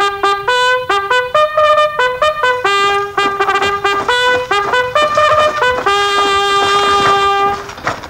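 Solo trumpet playing a brisk fanfare of short, separate notes, with a long held final note near the end.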